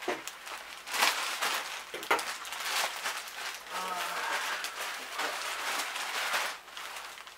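Packaging being handled and opened: crinkling and rustling, with a few sharper, louder rips about one and two seconds in.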